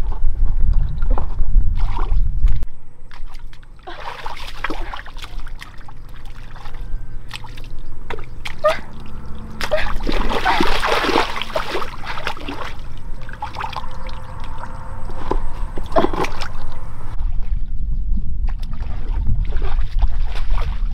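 Water splashing and trickling in irregular strokes, with a denser burst of splashing about halfway through. A low rumble underlies the first couple of seconds and returns near the end.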